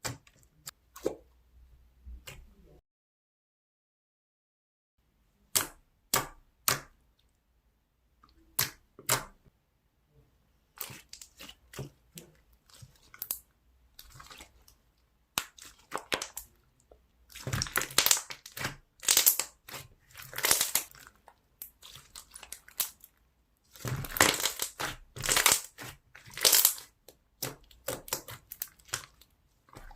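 Slime being pressed and played with by hand, giving sharp separate clicks and pops. It builds to dense stretches of crisp crackling a little past halfway through and again near the end.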